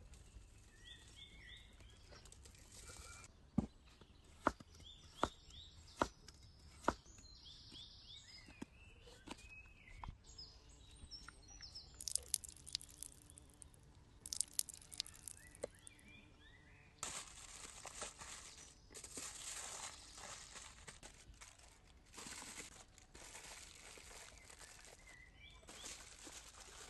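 Small birds chirping, with five sharp knocks a little under a second apart a few seconds in. Crackling, crinkling and rustling handling noises follow through the second half.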